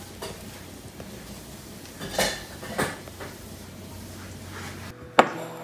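A low steady hum with two brief rattling scrapes a couple of seconds in. The hum cuts off about five seconds in, and a sharp clink of kitchenware with a short ringing tone follows.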